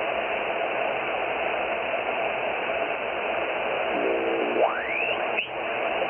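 Hiss of band noise from a shortwave transceiver's speaker on single sideband, with a receive audio passband that cuts off near 3 kHz. About four seconds in, a whistle sweeps quickly upward in pitch, and a second brief streak follows.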